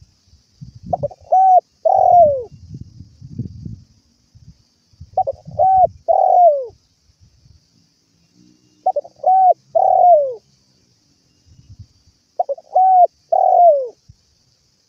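Spotted dove (tekukur) singing: four cooing phrases about three and a half seconds apart, each made of two short coos and a longer final coo that falls in pitch. Faint low thumps and rumbles come in between, mostly during the first two phrases.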